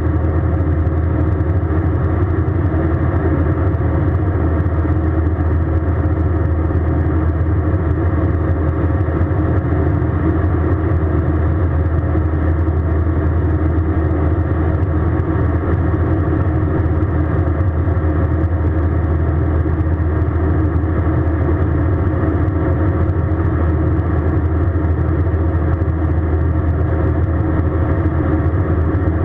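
Airbus A320 jet engines and airflow heard from inside the passenger cabin: a steady, unchanging drone with a strong low hum and a few faint steady tones over it.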